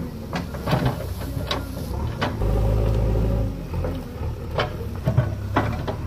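Diesel engine of a JCB backhoe loader running under load, its low hum swelling for about a second midway, with several sharp knocks and cracks as the backhoe bucket pushes against a large dry tree trunk.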